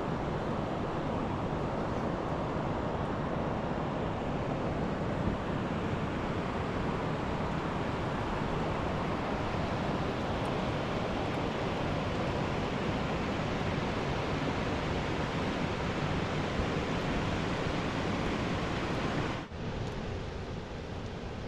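Rushing mountain river water, a steady even rush. It dips sharply for a moment near the end, then goes on a little quieter.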